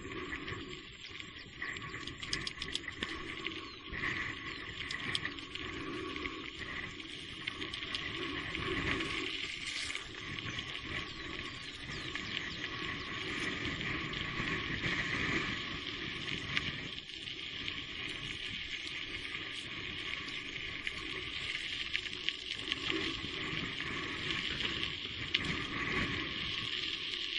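Steady hiss of heavy rain with scattered small crackles and ticks, on a wet trail.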